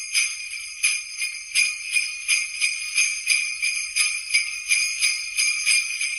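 Jingle bells shaken in a steady rhythm, about three shakes a second, each shake a bright jingle over a continuous shimmer.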